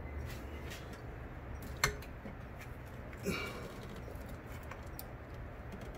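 Parts being handled while a cylinder head is lowered onto a V6 engine block: one sharp click about two seconds in, then a short sound falling in pitch about a second later, over a low steady hum.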